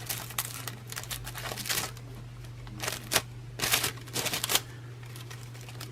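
Gold leaf and its paper being handled and rubbed onto a sized surface: irregular short papery rustles and scratchy rubbing strokes, in clusters with pauses between, over a steady low hum.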